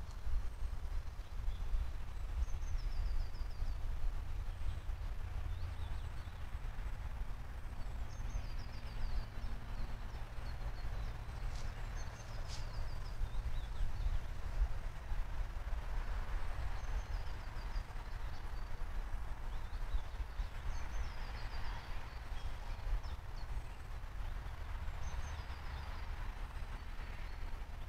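Low steady rumble under songbirds singing short descending trills every few seconds, with two sharp clicks about halfway through.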